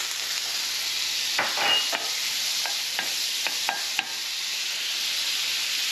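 Butter melting and sizzling steadily in a hot frying pan, with a few light taps and scrapes of a spatula against the pan.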